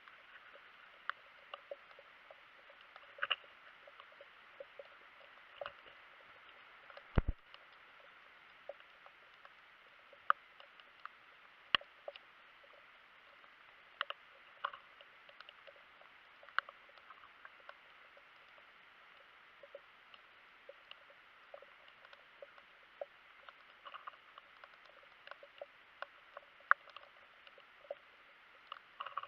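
Underwater sound in the sea: a faint steady hiss with irregular sharp clicks and crackles, and a handful of louder knocks.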